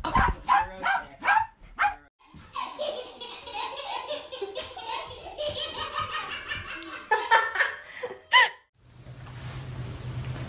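A small dog barks sharply four or five times, then a long stretch of hearty laughter follows. After about nine seconds a steady low hum takes over.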